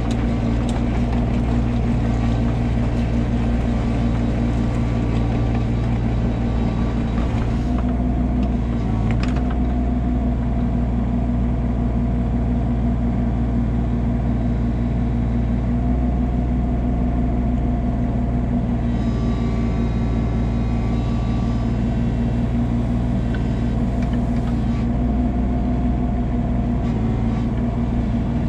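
Komatsu PC16 mini excavator's diesel engine running steadily under load as the machine pushes wood chips with a hydraulic plow. A faint higher whine joins for a few seconds in the second half.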